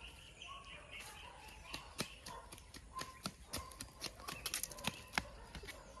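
Footsteps on a paved path, a run of sharp, irregular clicks that grow thicker in the second half, with faint bird calls behind them.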